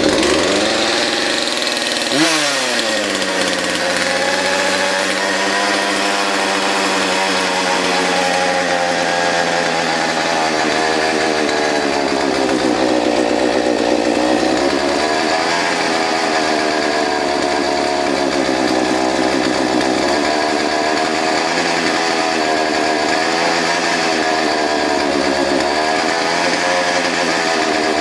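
Poulan Pro Classic 42cc two-stroke chainsaw engine running, with no bar or chain fitted, just after a choked cold start. Its revs fall off in the first second, blip up once about two seconds in, then settle into a steady idle that wanders slightly in pitch.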